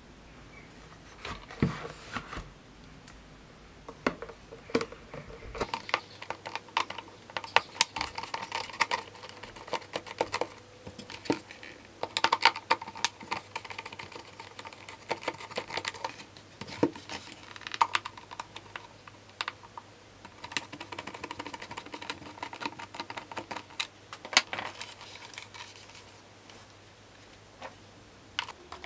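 Hard plastic parts of a Dyson DC62 cyclone assembly being handled and worked apart by hand: irregular clicks, taps and scraping.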